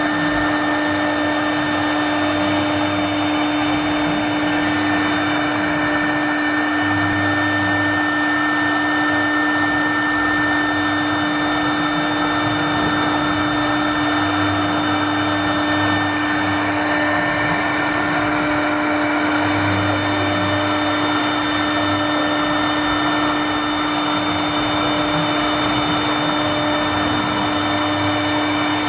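CNC router engraving a line drawing into a wooden board: the high-speed spindle runs with a steady whine over the hiss of the bit cutting, with a lower hum coming and going every few seconds as the head moves.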